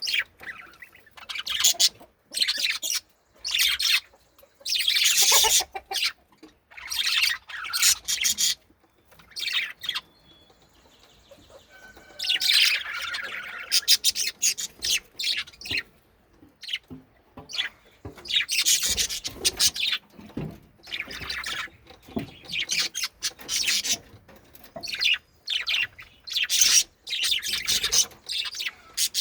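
Budgerigars chirping and chattering in rapid, irregular bursts of high-pitched calls, with a brief lull about a third of the way in.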